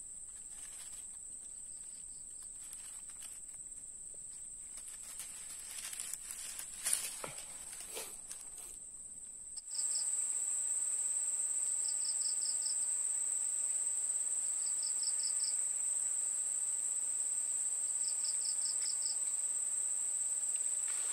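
Insects singing: a steady high-pitched buzz, with a few clicks and rustles in the first half. About ten seconds in the sound changes abruptly to a louder steady buzz, broken every few seconds by a short chirp of about five quick pulses.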